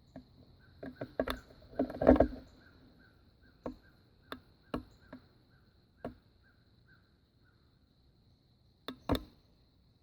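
Garden birds calling at dawn: a harsh caw about two seconds in, and a bird repeating a short note about three times a second that stops near the end. Under them runs a steady high-pitched hum, and scattered sharp clicks and knocks come through.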